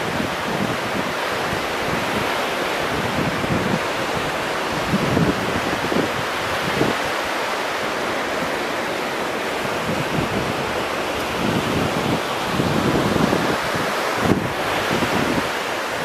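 Small waves breaking and washing in on the beach, a steady wash of surf, with wind buffeting the microphone in irregular low rumbles.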